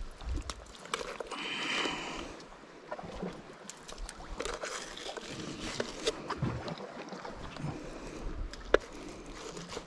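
Sea water sloshing against shoreline rocks while wet fish berley is scooped from a bucket and thrown out, with small knocks and handling clicks and one sharp knock near the end.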